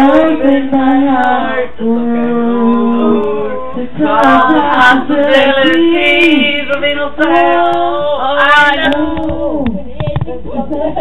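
A group of voices, mostly female, singing a song together with long held notes.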